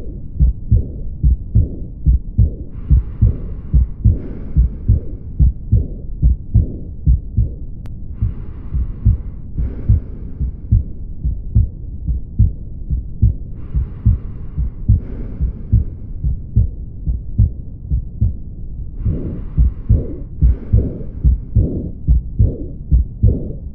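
Heart sounds heard through a stethoscope, from a patient with a cardiac lesion: a steady, regular run of low thumping beats. A soft hiss of breath sounds comes and goes in and-out pairs about every five and a half seconds.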